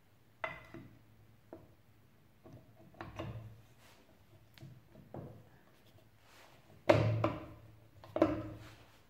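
Metal clutch cover of a Derbi engine being worked by hand onto the crankcase, turned so its water-pump gear meshes: scattered knocks and rubbing, with two louder knocks near the end.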